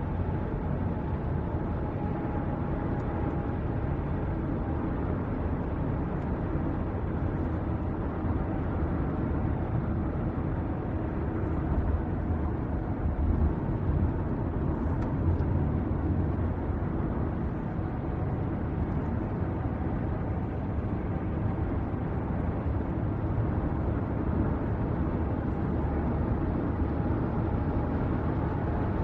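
Car driving along, heard from inside the cabin: a steady low engine and road rumble with a faint hum, swelling a little partway through.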